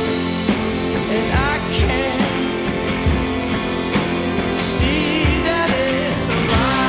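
Background rock music with guitar, a steady drum beat and a singing voice.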